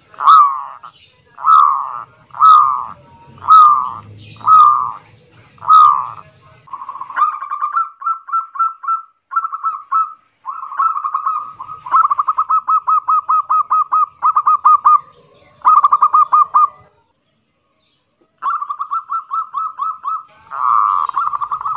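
A zebra dove (perkutut) gives its loud, grating 'kerot nguwor' song. It starts with six short, harsh coos about a second apart, then breaks into long runs of fast, rattling staccato notes, with a brief pause late on before the rattling resumes.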